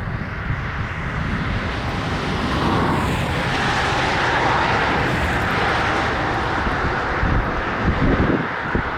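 A train passing by: a steady rumble and rushing noise of locomotives and rolling cars, swelling toward the middle and holding loud.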